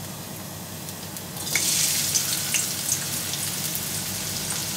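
Hot mustard oil in a kadai hissing faintly, then chopped onion dropped in about a second and a half in, setting off a loud frying sizzle with scattered pops.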